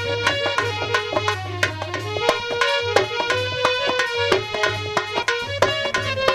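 Instrumental interlude of a Hindi devotional bhajan: tabla-like hand drums playing a quick, steady rhythm under a sustained melody line with a pulsing bass.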